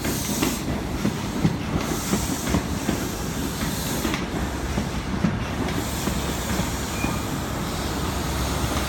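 InterCity 125 (HST) Mark 3 coaches rolling slowly past while the train pulls into the platform. The wheels clack steadily over the rail joints, with a faint squeal now and then.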